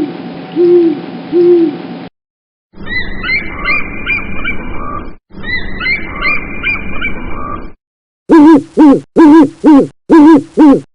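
A run of recorded animal and bird calls. First come three short low notes, then a chirping bird call with background noise, played twice, then four loud calls in quick succession near the end.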